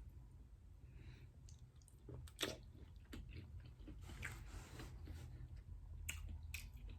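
Faint close-up chewing of seafood boil food, with scattered wet mouth clicks and smacks, the sharpest about two and a half seconds in, over a steady low hum.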